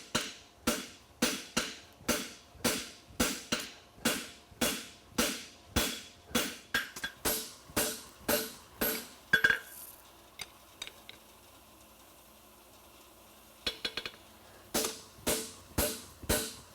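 Hand hammer striking a steel horseshoe on an anvil at a steady pace, about two to three ringing blows a second. The hammering stops for a few seconds about ten seconds in, with a few light taps, and resumes near the end.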